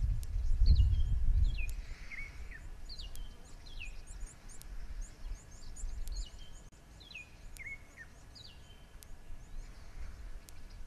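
Birds calling repeatedly: short whistled notes that slide downward, roughly one a second, with fainter high chips between them. A low rumble sits underneath, loudest in the first second or two.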